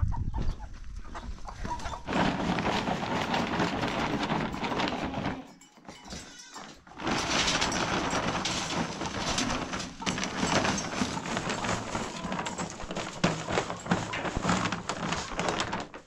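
A herd of goats bleating and moving together, a dense, busy sound that dips for a moment about five and a half seconds in.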